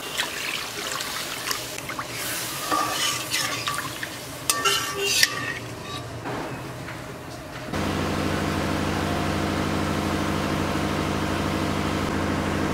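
Water poured into hot fried poppy-seed paste in an aluminium kadai, then a spatula stirring and scraping the pan, with a few louder scrapes near the middle. After about eight seconds the sound switches suddenly to a steady low hum.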